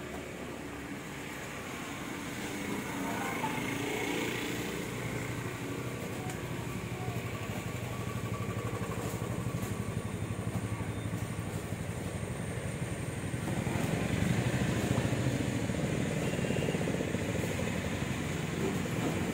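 A motor engine running steadily, growing louder, most of all from about two-thirds of the way through.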